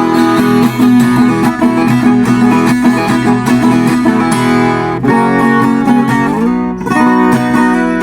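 Viola caipira, the ten-string Brazilian folk guitar in five doubled courses, with a roxinho (purpleheart) body, being played: quick plucked notes and strummed chords ringing over a steady low note, with a slide up to a new chord about six seconds in.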